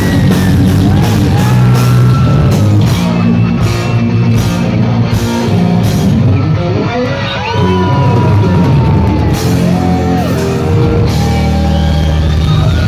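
Heavy metal band playing live and loud, with distorted electric guitars, electric bass and drums, heard from the crowd.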